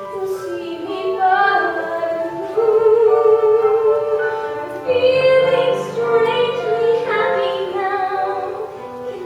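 A singer holding long sung notes over musical accompaniment in a stage-musical number.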